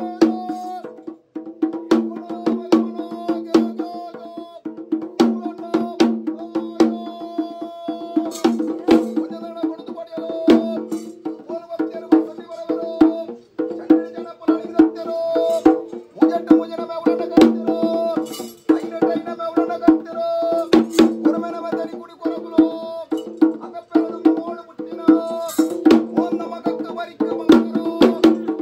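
Tulu bhuta kola ritual music: a held, reedy melodic line that moves between notes over sharp, rapid drum and percussion strokes.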